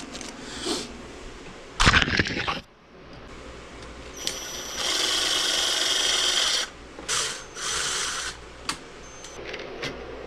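Small handheld power tool running in several short bursts, the longest lasting about two seconds.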